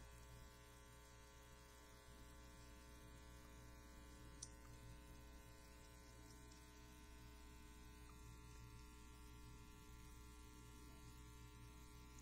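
Near silence with a faint, steady electrical mains hum and its overtones. There is one faint tick a little over four seconds in.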